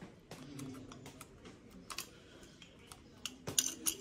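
Scattered light clicks and small clinks, a few about two seconds in and a quick cluster of louder ones near the end.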